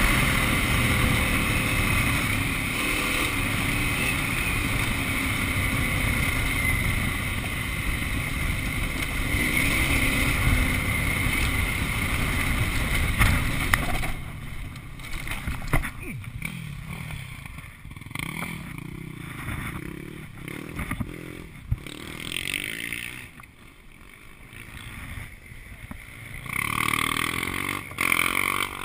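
KTM 950 V-twin motorcycle being ridden along a dirt track, its engine running steadily under wind and tyre noise. About halfway in the sound drops to a much quieter low-speed running, with scattered knocks.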